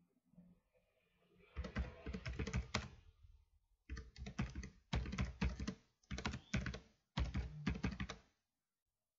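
Computer keyboard typing, in five quick runs of keystrokes with short pauses between words. The typing stops about a second before the end.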